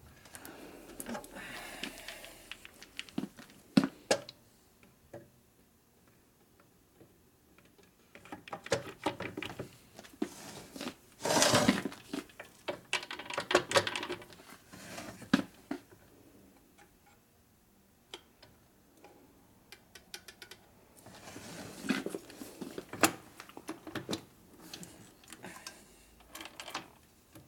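Intermittent clinks and knocks of metal engine parts being handled and fitted during a trial assembly of a Sportster transmission into its case, coming in bursts with quiet gaps between.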